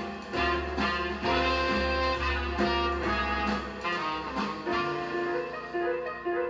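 Jazz with horns and a walking bass, played from a vinyl record through JBL 4312D monitor speakers driven by a self-built 2A3 single-ended amplifier. The highs thin out near the end.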